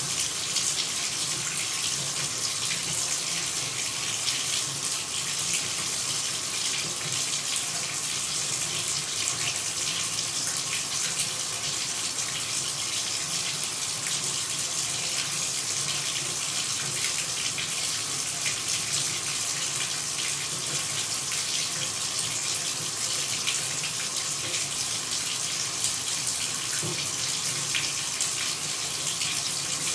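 Water running steadily with an even, unchanging rush, mostly a high hiss with a weaker low rumble beneath it.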